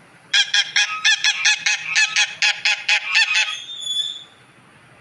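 Goose honking: a rapid run of about fifteen short honks over some three seconds, trailing off more faintly near the end.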